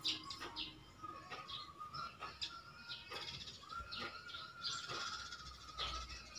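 Small birds chirping, with short high calls scattered throughout and a thin held note through most of it. There are a few light clicks among them.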